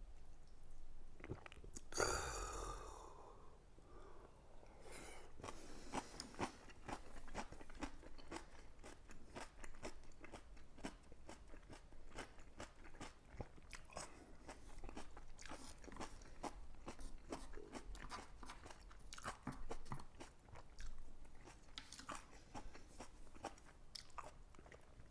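A person chewing crunchy fried pork cutlet (tonkatsu) close to the microphone: a long run of small irregular crunches, with a louder noisy burst about two seconds in.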